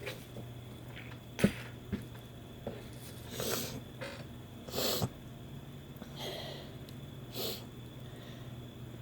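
A woman sniffing hard through her nose, four short, breathy sniffs about a second and a half apart, her nose irritated by chhinkni sneezing powder. A sharp click about a second and a half in is the loudest sound.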